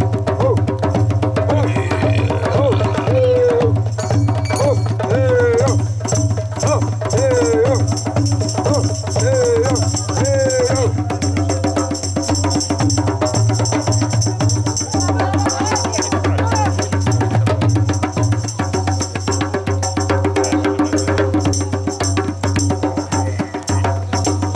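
Music with dense, fast drumming, and a voice calling short bending notes over and over, about once a second, in the first half.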